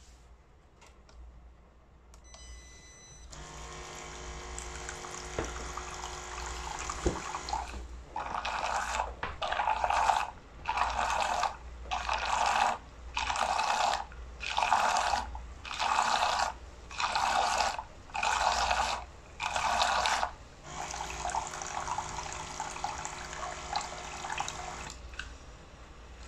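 OKKA Turkish coffee machine's pump filling the pot with water. After a short beep it runs steadily, then pulses on and off about ten times, roughly once every second and a half, runs steadily again and stops near the end.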